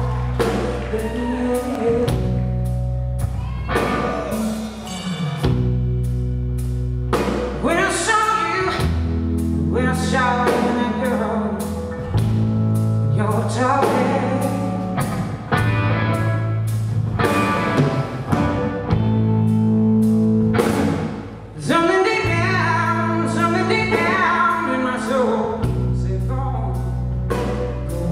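A woman singing a slow soul-blues ballad live with her band: held low chords change every second or two under her voice, with drum strikes throughout. The music dips briefly about three quarters of the way through.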